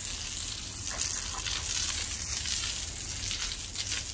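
Garden hose spraying a steady jet of water against a brick wall and paving, an even hiss and splash throughout. The bricks are being soft-washed to rinse off acid brick cleaner.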